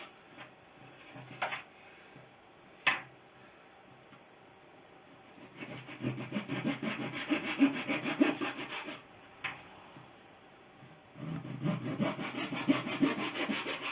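Razor saw cutting through the thin wooden strips of a wing rib, trimming their ends flush in straightforward cuts. Two bouts of quick back-and-forth saw strokes, the first about six seconds in and the second near the end, with a few light taps in the quiet between.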